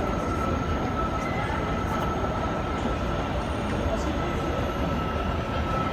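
New York City Subway 7 train approaching an elevated station, a steady rumble of the train on the track with a thin, steady high-pitched whine over it.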